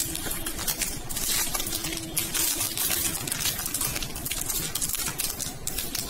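Clear plastic zip bag crinkling and crackling as fingers squeeze and work it open, a dense run of small crackles.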